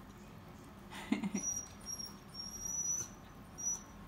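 Miniature schnauzer whining at a closed door: thin, very high squeaky whines that come and go for a couple of seconds, after a short low sound about a second in. The dog wants to get to the food on the other side.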